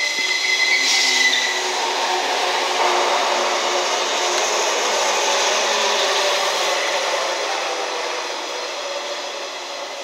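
JNR 113 series four-car electric train passing a station platform: the steady running noise of its wheels on the rails, fading slowly as it draws away over the last few seconds.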